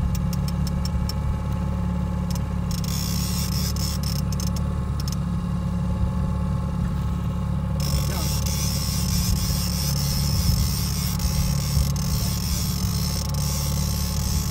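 Boat's outboard motor running steadily at trolling speed, with a run of fast clicks from the fishing reel in the first few seconds as the angler works a salmon. A steady hiss comes in about eight seconds in.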